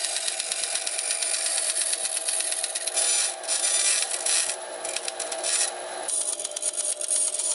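Small power saw running, its blade rasping through thin brass sheet under a steady motor hum. The cutting noise comes and goes unevenly between about three and six seconds in as the sheet is fed and turned.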